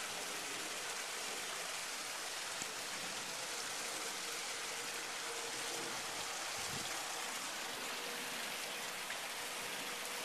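Steady rain-like hiss of the night air, with a faint steady hum in the second half and one dull low thump about six and a half seconds in.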